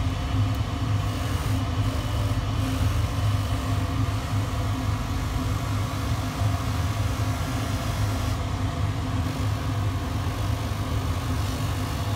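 Luigi Dal Trozzo bench polishing motor, an asynchronous (induction) motor, running steadily with its cloth polishing wheel spinning on the tapered spindle, giving a constant low hum.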